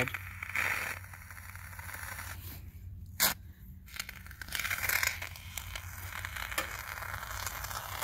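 Foam gun dispensing Aquascape black waterfall foam sealant from a pressurised can into a gap between rocks, hissing and crackling in spurts as the trigger is worked. There is one sharp click a little after three seconds in.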